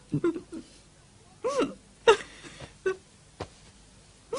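A woman sobbing in short broken cries, with one longer wail about one and a half seconds in that rises and falls in pitch.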